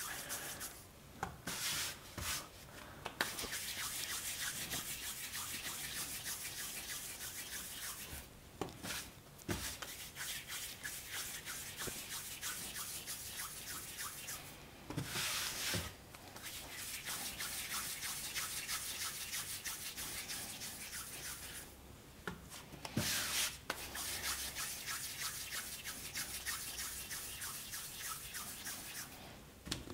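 Hands rounding pieces of yeast dough against a floured countertop: a fast, rhythmic rubbing and scraping in runs of several seconds, broken by short pauses between balls.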